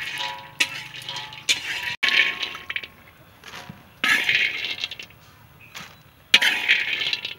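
Roasted peanuts rattling in a plastic colander as they are tipped and shaken, in three bursts about two seconds apart. Before that, soft background music with a few light clinks.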